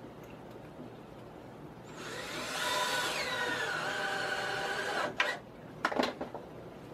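Cordless drill running for about three seconds: its whine rises as it spins up, then drops to a lower, steady pitch as it drives a screw into the wooden frame. A few sharp knocks follow near the end.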